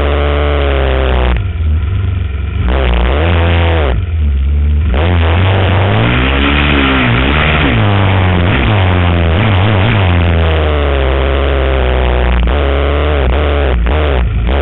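Single-cylinder 450cc four-stroke sport quad engine, heard from on board, revving up and down in pitch as it is ridden over a dirt trail. The throttle briefly closes twice, about one and a half seconds in and again about four seconds in, before it pulls hard again.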